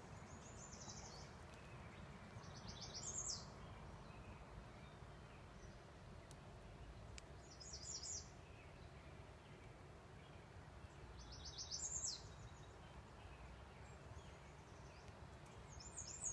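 Faint songbird song: a short phrase of rapid high notes repeated about five times, roughly every four seconds, over a low steady background noise.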